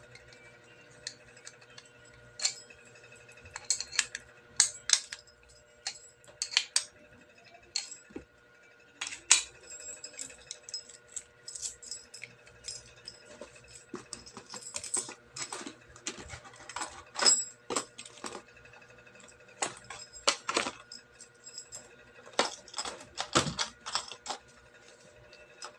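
Hands packing away an alarm padlock and its parts: irregular clicks and taps of small hard plastic and metal pieces, mixed with the crinkling of plastic packaging.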